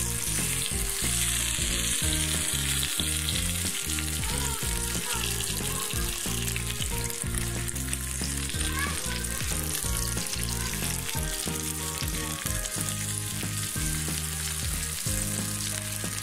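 Tandoori chicken pieces sizzling steadily in oil in a non-stick pan as they are moved about with metal tongs, the pieces fully fried and ready to come off the heat.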